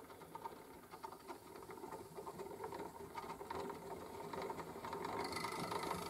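Spring-wound gramophone motor running with its governor spinning up: a light, rapid whirring chatter of gears that grows steadily louder. It is being test-run after the lever carrying the governor's brake pad has been bent to slow it.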